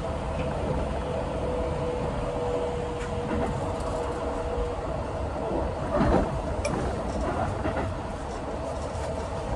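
Keikyu 1000-series electric train with Siemens IGBT traction equipment, heard running at speed from the driver's cab: a steady rumble of wheels on rail with two steady tones, the lower one fading out about halfway. A brief louder burst comes about six seconds in.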